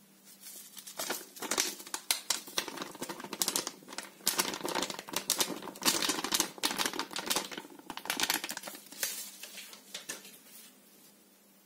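A foil sachet of ground pepper mix being shaken and tapped over raw chicken pieces, a rapid run of light taps and packet crinkles that stops near the end.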